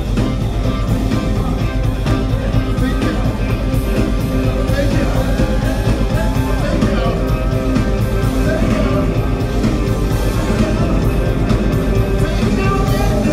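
Live rock band playing at full volume, with electric guitars, bass, drums and keyboards under singing, heard from within the audience.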